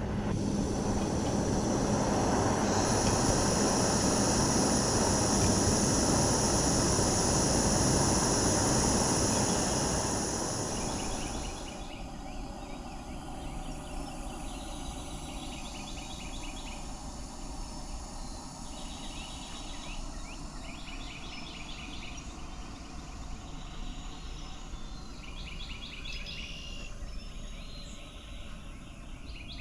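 A steady rushing of wind with a continuous high insect buzz, which drops away suddenly about twelve seconds in. After that it is quieter, with insects repeating short, fast pulsing calls every few seconds.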